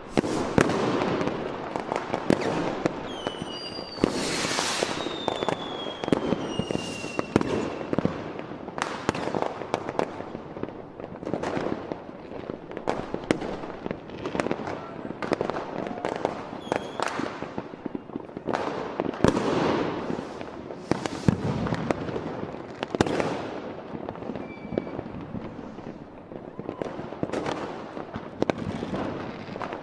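Fireworks display going off continuously: a dense run of bangs and crackling bursts with echoing tails. Several whistling shells glide down in pitch about three to eight seconds in.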